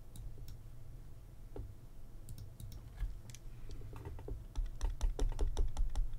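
Keys tapped on a computer keyboard: scattered single clicks, then a quick irregular run of them in the last two seconds, over a low steady hum.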